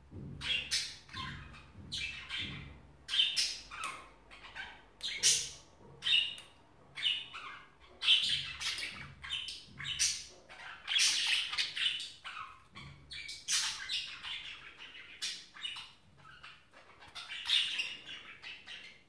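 Budgerigars chattering: a steady stream of short squawks and chirps with brief pauses between them.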